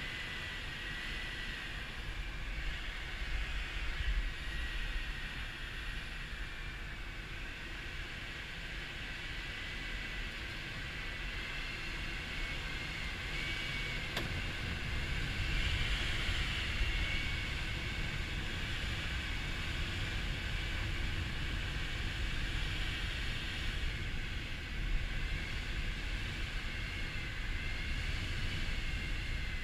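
Air rushing over an unpowered glider's cockpit canopy during the landing approach at about 55 knots: a steady hiss over a low rumble, with a thin, wavering whistle.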